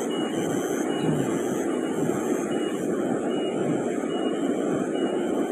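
Steady rush of a shallow rocky river running over rapids, with a short high chirp repeating about once a second.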